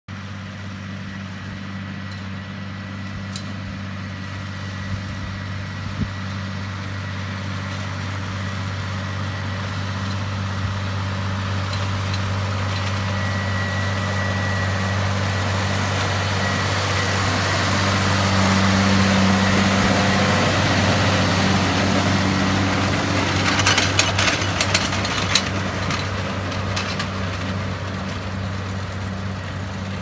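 Tractor diesel engine running steadily while pulling a round baler through the field. It grows louder as the tractor approaches and passes, then fades. A few sharp knocks come a few seconds before the end.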